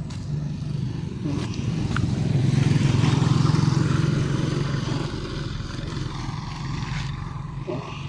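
A motor vehicle passing close by: a steady low engine hum with tyre hiss, growing louder to a peak about three seconds in, then fading.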